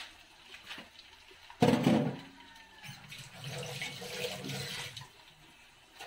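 Water running and splashing, starting with a sudden loud gush about one and a half seconds in and settling into a steadier flow that fades near the end.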